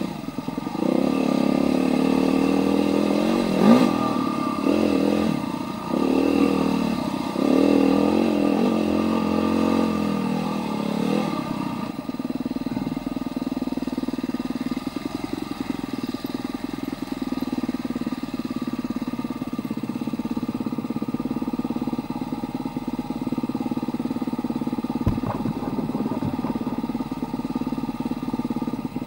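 Husqvarna TE310R single-cylinder four-stroke dirt bike engine revving up and down over the first dozen seconds, with a sharp knock about four seconds in. It then settles into a steady, even note.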